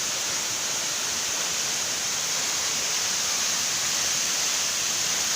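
Waterfall rushing steadily: a continuous, even hiss of falling water.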